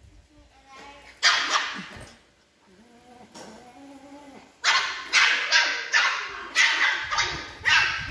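Shih tzu puppy barking: one bark about a second in, then a quick series of barks through the second half.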